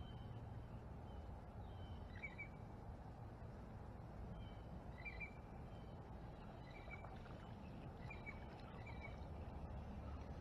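Short, high bird chirps repeated every second or two over a low steady outdoor rumble.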